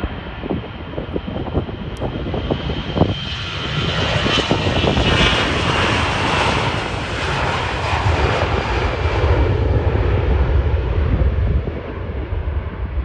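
Frontier Airbus A320-family twin-jet airliner at takeoff power on its takeoff roll. The jet noise swells as it passes, about five seconds in, with a deep low rumble strongest around eight to ten seconds, then eases as the aircraft moves away and begins to lift off.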